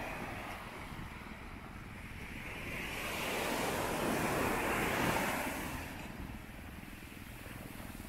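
Sea surf: a wave breaks and washes in, the rush of water swelling about three seconds in and fading away near the end, with wind rumbling on the microphone.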